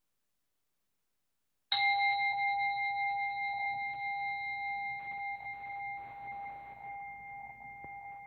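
A singing bell struck once, about two seconds in, then ringing on with a slowly fading, gently pulsing tone whose higher overtones die away sooner. It marks the start of a time of silent prayer.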